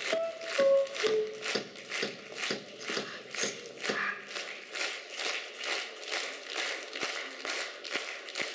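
Concert audience clapping in unison, a steady rhythm of about two claps a second over a wash of general applause.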